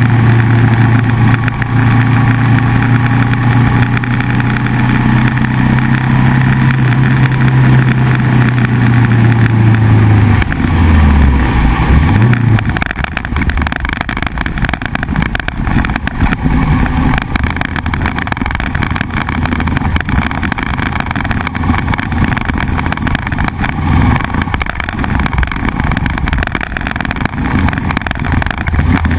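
Motorcycle engine running steadily at speed. About ten seconds in its note falls sharply, dips and rises again briefly as the bike slows, then gives way to a lower, rougher, noisier running.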